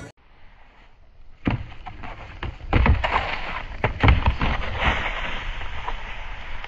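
Skis knocking and scraping against a plastic rail, with several sharp knocks in the first few seconds, then a steady hiss of skis sliding over snow.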